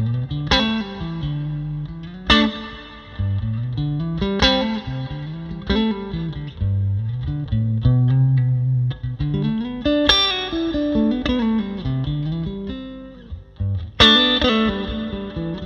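Tokai Springy Sound electric guitar played through a Bad Cat Classic Pro 20 Reverb, a 6V6-powered 20-watt combo with a 12-inch speaker, all its controls set to 5. Chords are struck and left to ring every second or two, with single notes and a moving bass line picked between them.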